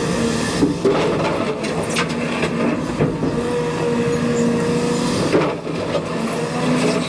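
Cat 335 Next Gen excavator running, a steady engine and hydraulic drone, with a few short knocks as it works gravel.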